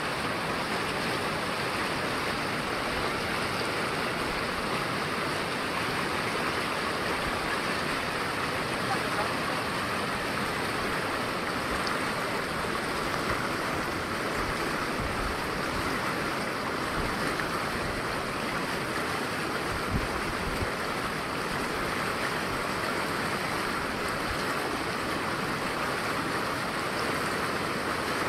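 Fast mountain river rushing and churning over rocks and boulders in a steady roar of water, with a couple of faint low bumps about two-thirds of the way through.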